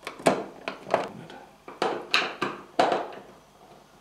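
Metal screws and a screwdriver clicking and tapping against the plastic rear cover of an LED TV as the screws are set down into their deep screw channels: a run of about eight sharp, irregular clicks.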